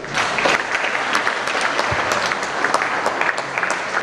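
An audience applauding, many hands clapping in a dense, even patter that starts suddenly as a prize winner is named.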